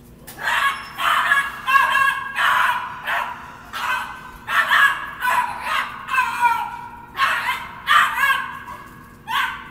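A nervous dog barking over and over in quick, high yapping barks, about a dozen in all, starting about half a second in, with some barks sliding down in pitch.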